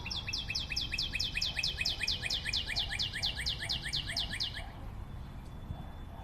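A bird's trill: a rapid, even run of short falling chirps, about six a second, that lasts about four and a half seconds and then stops.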